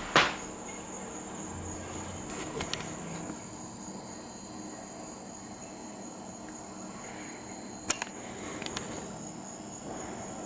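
A steady, thin high-pitched whine like insects, with a second fainter tone for a few seconds in the middle. A sharp click comes just after the start and two more come near the end.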